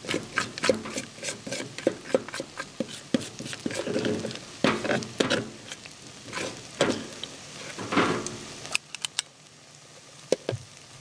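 Hot oil in a pot sizzling and crackling as spoonfuls of hush puppy batter are dropped in to deep-fry, with frequent sharp pops. The crackling eases near the end.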